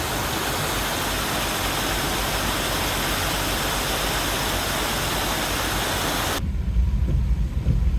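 Steady hiss of rain and tyres on a wet road inside a moving car. About six and a half seconds in the hiss cuts off abruptly, leaving a low rumble of the car.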